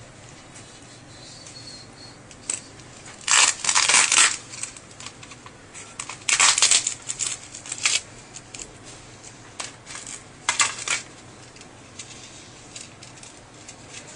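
Handling noise from a disassembled tablet, its circuit board, battery and tape being pressed and moved by hand: three bursts of crinkling and clattering, about three, six and ten seconds in, with a few lighter clicks between.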